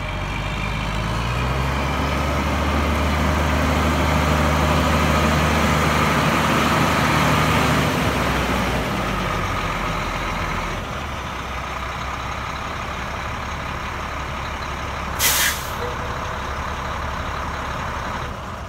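1995 Ford AeroMax L-9000 truck tractor's diesel engine running as the truck drives, then dropping to a steady idle about eight to ten seconds in as it stops. About fifteen seconds in, a short, sharp hiss of air from the air brakes.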